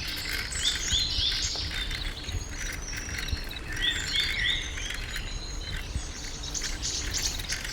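Birds singing, short chirping notes repeated in quick runs of three or four, over a steady high buzz of insects.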